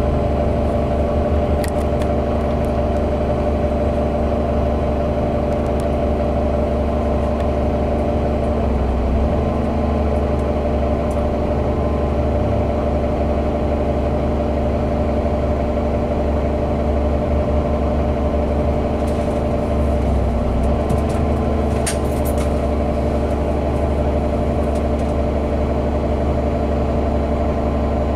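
A 2016 Gillig BRT bus's Cummins Westport compressed-natural-gas engine idling steadily while the bus stands in traffic, heard from inside the cabin.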